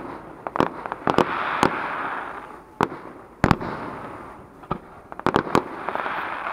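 Fireworks display: aerial shells bursting in sharp bangs, several in quick succession, the loudest about halfway through, over a hiss that swells and fades between them.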